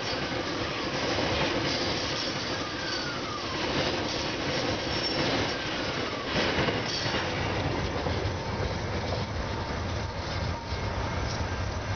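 Freight train wagons rolling over a level crossing, wheels clattering on the rails, with several brief falling wheel squeals. About seven seconds in, the last wagons pass and the high clatter fades, leaving a low rumble.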